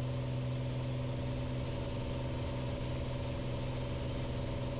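The Piper Cherokee 235's six-cylinder Lycoming O-540 engine and propeller drone steadily in the climb, with a strong low hum and no change in pitch or level.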